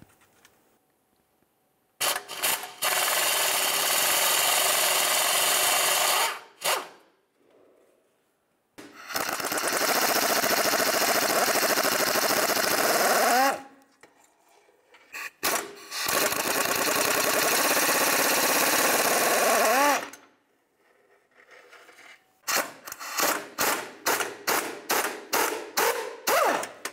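Power tool driving a socket on an extension to loosen rusty 12 mm exhaust flange nuts. It runs in three long bursts of about four seconds each, then in a quick string of short trigger pulses near the end.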